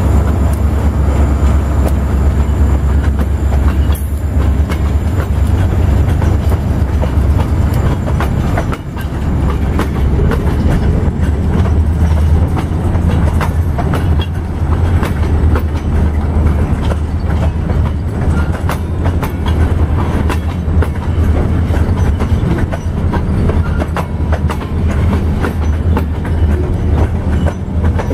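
Freight train boxcars rolling past close by: a steady low rumble of steel wheels on the rails, with frequent clicks and clacks as the wheels cross rail joints.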